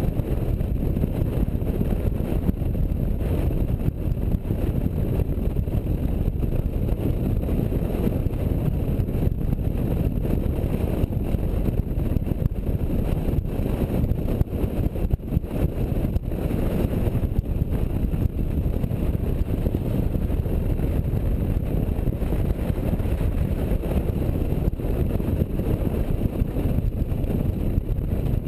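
Motorcycle under way at road speed: engine and wind noise on the microphone blend into a steady low rumble.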